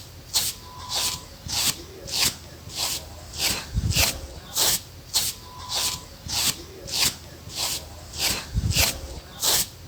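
A comb drawn repeatedly through hair, each stroke a short rasping swish, about one and a half to two strokes a second in an even rhythm.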